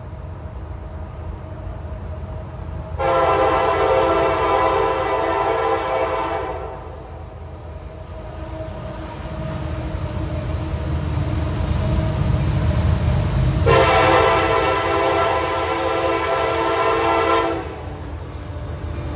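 Diesel locomotive's multi-note air horn sounding two long blasts, one about three seconds in and one about fourteen seconds in, each lasting roughly four seconds, over the low rumble of the approaching train, which grows louder between the blasts.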